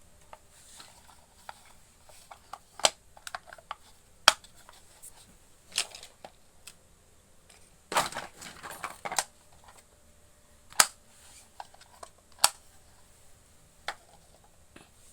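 Pieces of a miniature toy cooking set being handled and set down: scattered sharp clicks and taps, with a busier patch of clatter about eight seconds in.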